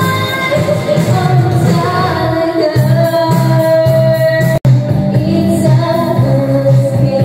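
Karaoke backing music with a woman singing along through a handheld microphone. The sound drops out for an instant a little past halfway.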